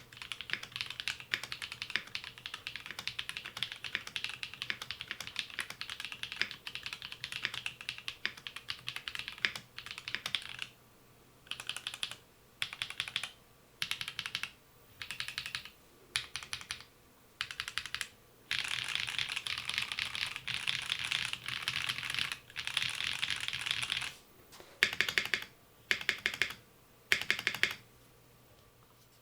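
Typing on a Blade60 custom mechanical keyboard with Technoviolets linear switches in a PC plate and GMK keycaps: a steady stream of key presses for about ten seconds, then a series of short bursts of rapid keystrokes with pauses between them, another continuous run of typing, and a few last short bursts near the end.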